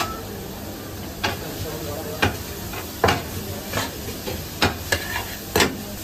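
Metal spatula scraping and clinking against a large shallow steel tantuni pan as diced meat is stirred in its juices, with sharp strikes about once a second over a steady sizzle.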